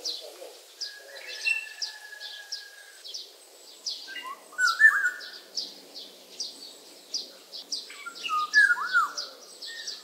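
Black-naped orioles singing fluting whistled phrases: a held whistle about a second in, then two louder rolling phrases about halfway and near the end. A steady run of short high chirps repeats behind them.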